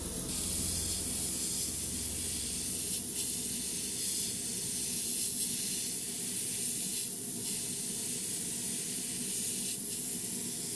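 Airbrush spraying satin varnish: a steady hiss of air and atomised varnish.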